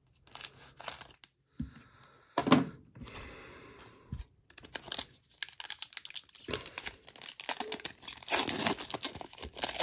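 A trading card pack being opened: scissors snipping at the top of the shiny wrapper, then the wrapper crinkling and tearing in the hands, busiest and loudest near the end.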